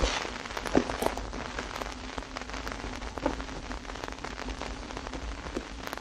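Vinyl record surface noise as the stylus runs through the lead-in groove of a 1979 7-inch single: a steady hiss dotted with crackle and frequent small clicks, a few louder pops, over a low hum.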